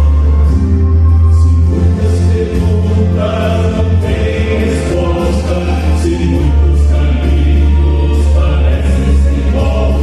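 Vocal quartet singing a gospel hymn in harmony over instrumental accompaniment with a strong, steady low bass.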